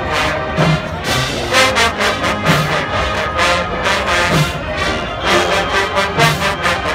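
Marching band playing loudly: brass horns over a steady drum beat, with low brass notes punching in every second or two.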